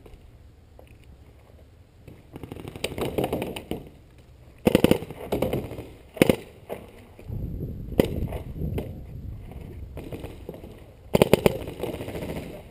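Paintball markers firing rapid strings of shots, in three bursts about two, five and eleven seconds in.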